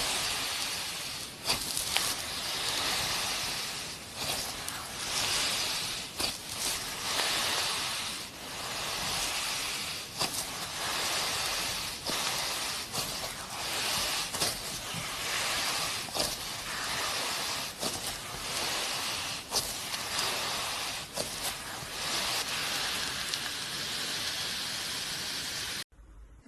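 Slime being squished and pressed by hand, giving a crackly hiss that swells and fades every second or two, with occasional sharp pops. It cuts off abruptly near the end.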